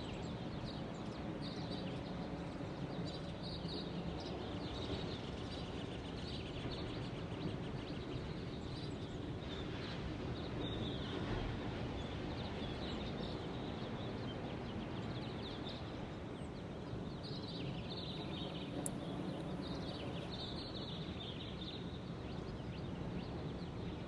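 Recorded birdsong ambience: scattered bird chirps in short clusters every few seconds over a steady background hiss.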